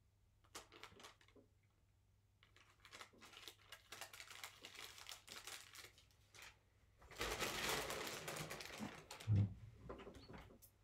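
Paper crinkling and rustling: light crackles at first, then a paper takeaway bag rustled loudly about seven seconds in, with a dull thump near the end.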